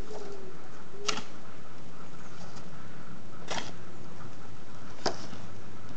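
A spade scraping into loose earth and ash and throwing it against the base of a steel charcoal kiln, three short scrapes about two seconds apart, over a steady hiss. The soil is being heaped on to shut off the kiln's last air inlets.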